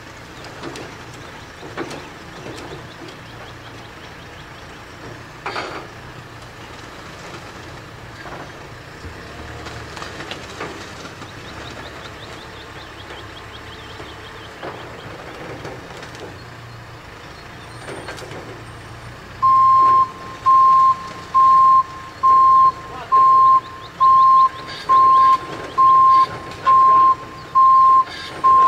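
Telehandler forklift engine running, with scattered knocks and clanks from the load. About two-thirds of the way through, a backup alarm starts beeping loudly and steadily, about one beep a second.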